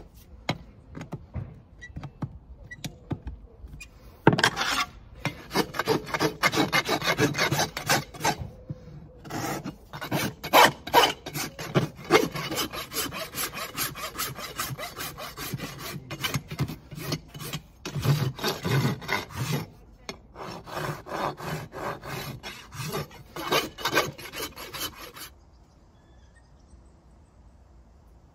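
Farrier's rasp filing the outer wall of a horse's hoof in fast back-and-forth strokes, with a couple of short pauses, dressing the hoof after the shoe has been nailed on. A few light clicks come before the rasping, and it stops a few seconds before the end.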